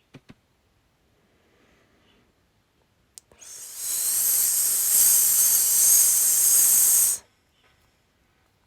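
A long, steady 'sss' hiss lasting about four seconds, with a short click just before it. The hiss swells in over the first half-second and cuts off sharply.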